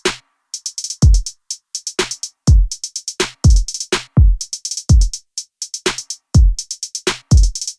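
Background music: an electronic drum-machine beat of deep kick drums with rapid hi-hat ticks between them.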